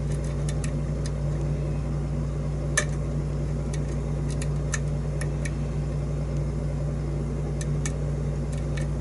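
Light, irregular clicks of a lock pick setting and probing pins in a pin-tumbler challenge lock, about a dozen with the sharpest about 3 s in, over a steady low electrical hum.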